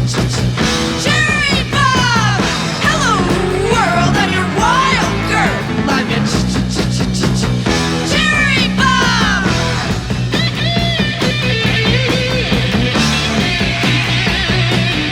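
Rock music played from a vinyl record: a full band with a steady bass and drum backing. A lead line of high sliding, bending notes comes in about a second in and again about eight seconds in.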